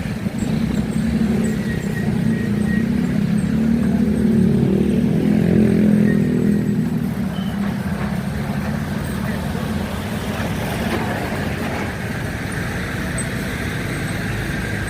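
Road traffic with a heavy engine passing close by. It grows to its loudest about five to six seconds in and then eases back to a steady traffic hum.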